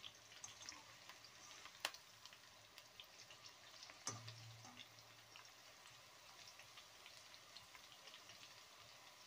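Okra pakoda deep-frying in hot oil in a kadai: a faint, steady sizzle dotted with many small crackles, and two sharp clicks about two seconds apart.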